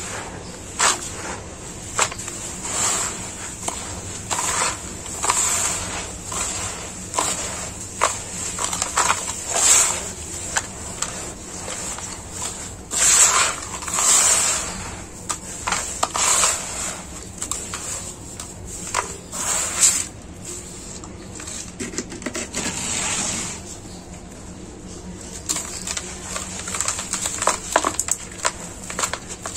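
Gloved hands digging and squeezing through dry, gritty soil and gravel, making irregular crunching and scraping with grainy crackles. The loudest scrapes fall around the middle, with a run of quick crackles near the end.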